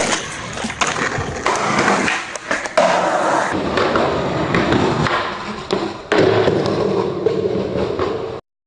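Skateboard wheels rolling on concrete, broken by several sharp clacks of the board. The sound cuts off suddenly near the end.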